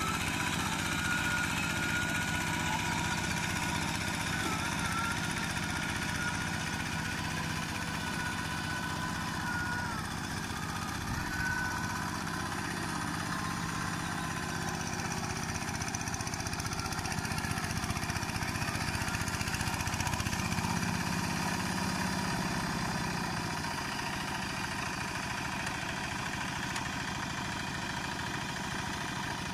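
Two-wheel hand tractor's single-cylinder diesel engine running steadily as the machine churns through a flooded, muddy paddy field.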